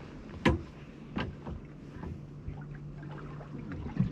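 Boat's engine running with a steady low hum, and a few sharp knocks on the boat, the loudest about half a second in and another near the end.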